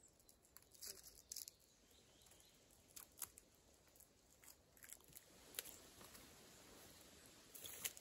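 Faint, scattered crackles and snaps of footsteps on dry twigs and forest brush. They come singly a few times, then cluster near the end, over near-silent forest ambience.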